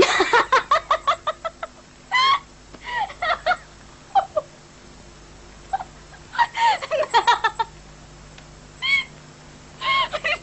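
A woman laughing hard in bursts. A fast run of laughs comes at the start, then high squealing whoops, another run of laughs about six seconds in, and short high squeals near the end.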